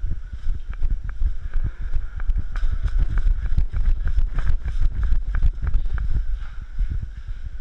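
Heavy low rumble of wind and movement on a body-worn GoPro's microphone, with a run of quick sharp knocks, about five a second, through the middle.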